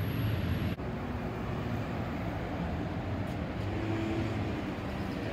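Steady city street background noise of passing traffic, with a brief dip about a second in.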